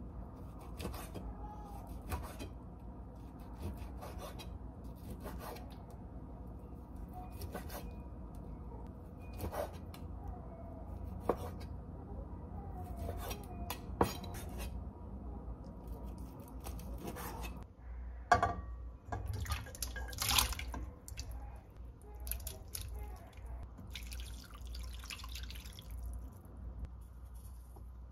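Water dripping and trickling at a kitchen sink, with scattered light clicks and knocks of utensils or dishes. A short stretch of running water comes near the end.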